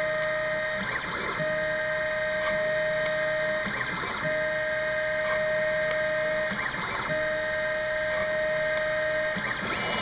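Home-built CNC mini mill (a converted X2 benchtop mill) milling buttonholes in a plastic enclosure. It gives a steady whine that breaks off about every three seconds for a short, noisier moment as the machine moves on to the next hole.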